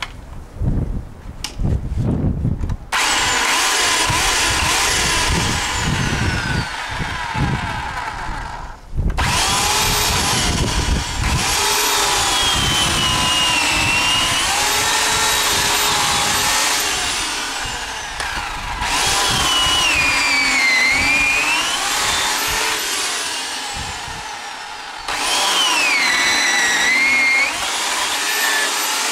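Bosch AKE electric chainsaw switching on about three seconds in and sawing through a small round log. Its motor whine drops in pitch each time the chain bites into the wood and rises again as the load eases, several times over. Low rumbling thumps come before it starts.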